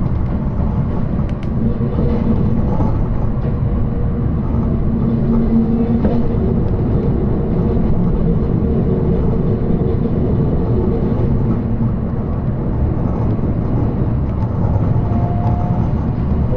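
Electric train running slowly on its rails, heard from just behind the driver's cab: a steady rumble of wheels and car body, with a faint whine that rises in pitch near the end as the train picks up speed.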